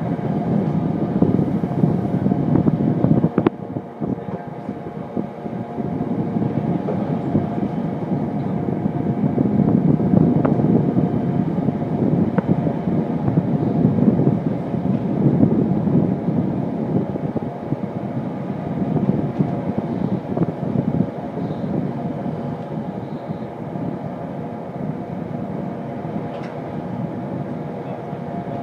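Long container freight train rolling past close by: a steady rumble of wagon wheels on the rails with a few steady whining tones over it, and a few sharp clicks from the wheels.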